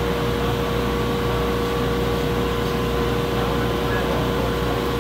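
A steady mechanical hum and rush with a constant tone, unchanging throughout, and no hammer blows.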